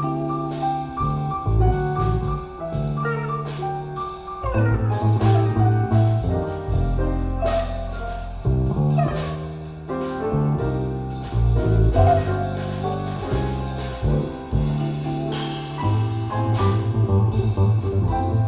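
Jazz with piano, bass and drums played from a vinyl record on a turntable through Tannoy Stirling loudspeakers, with a prominent bass line and cymbal strokes throughout.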